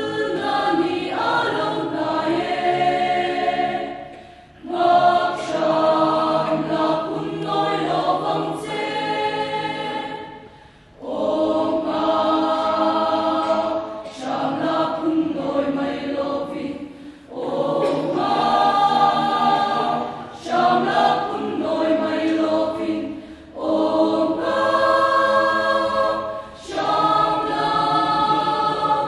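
Mixed choir of men's and women's voices singing a hymn in parts, in sung phrases broken every few seconds by short pauses for breath. No instrument is heard under the voices.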